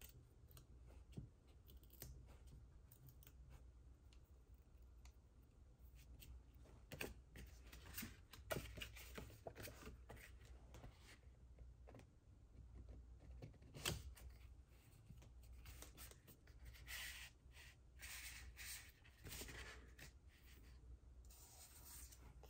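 Faint card-making handling sounds: cardstock and paper shuffled and slid across the table, with scattered small clicks and taps of craft tools being picked up and set down. A stretch of soft sliding and rubbing comes near the end, over a low steady room hum.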